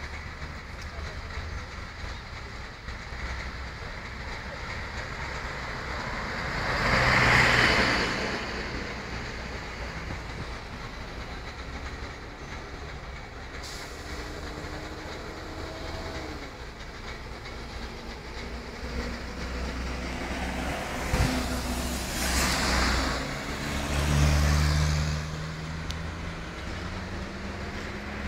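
Street traffic: a steady low rumble with vehicles passing close by. The loudest passes come about seven seconds in and again between about 21 and 25 seconds in, each swelling and fading away.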